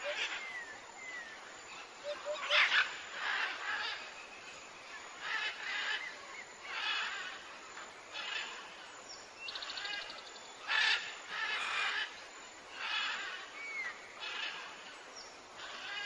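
Birds calling: a string of scratchy calls, one every second or so, with a few thin chirps between them.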